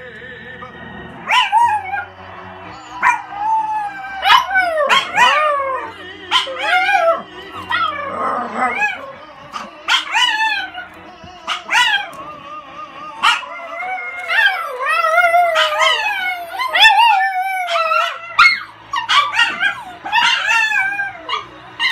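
Small dog howling along to music, in a long run of short howls and yips that rise and fall in pitch, over quieter music in the background.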